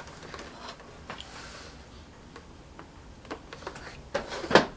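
Light handling noises: scattered faint clicks, with a few sharper taps near the end.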